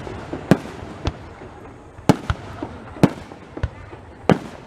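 Fireworks going off in a rapid series of sharp bangs, about seven at irregular intervals of half a second to a second, over a steady background hiss.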